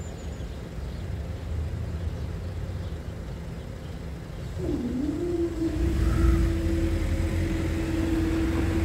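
Level crossing barrier mechanism raising the booms: a motor whine starts about halfway through, dips, then settles into a steady hum. Under it is a low rumble of cars that grows louder as traffic moves off.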